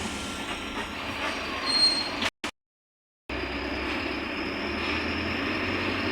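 Mercedes-Benz OF-1721 Bluetec 5 bus under way: steady diesel engine and road noise, with a brief high squeal a little under two seconds in. The sound cuts out completely for about a second soon after, then resumes unchanged.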